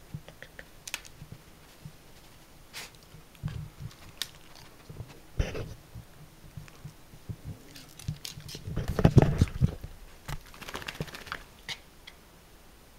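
Miniature dachshund's claws and paws pattering and scrabbling on the floor in scattered light taps, with a louder burst of bumps and rustling about nine seconds in.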